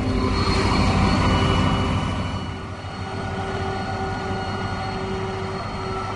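Krone BigX 500 forage harvester chopping grass: a steady heavy diesel drone with a high mechanical whine from the chopping drum, dropping somewhat in loudness about two seconds in.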